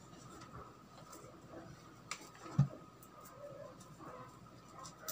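Handling of a plastic gaming headset and its cable: a few faint clicks and one dull knock about two and a half seconds in.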